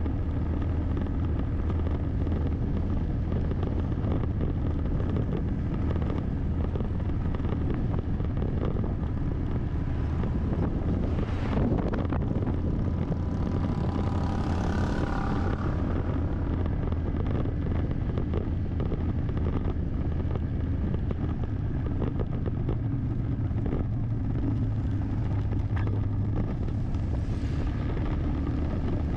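Car driving steadily on a road: constant engine and tyre noise with a low hum. Other vehicles pass about halfway through and again near the end.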